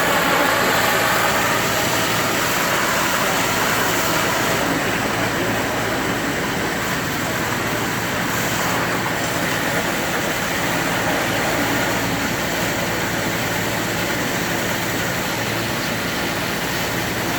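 An engine running steadily under a broad, even wash of noise, with no sudden knocks or impacts.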